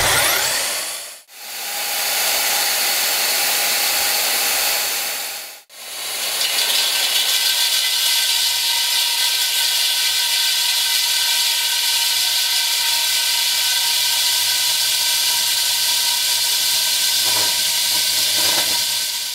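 Rig-mounted diamond core drill motor switched on and running steadily with a hissing whine, its 350 mm core bit turning in the lowest gear; from about six seconds in the bit is cutting into concrete under gentle feed. The sound drops out briefly about a second in and again near six seconds.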